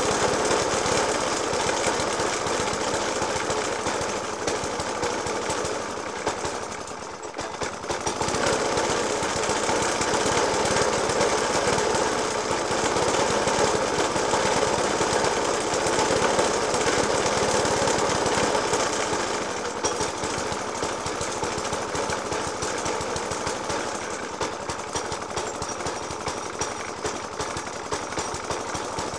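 Suffolk Punch 30S petrol lawnmower engine idling roughly with heavy, uneven banging. It dips briefly about a quarter of the way in and runs a little quieter in the last third. The banging persists despite a new spark plug, a decoke and a cleaned Dellorto FCH 20 carburettor.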